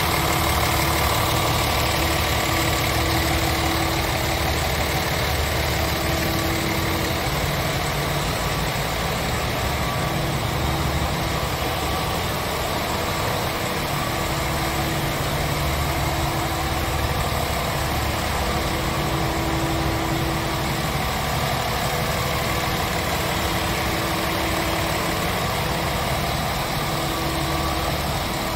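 Scania R tractor unit's Euro 6 diesel engine idling steadily.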